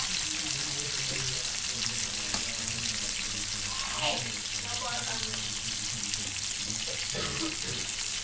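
Fish pieces shallow-frying in hot oil in a pan on medium flame, a steady sizzle.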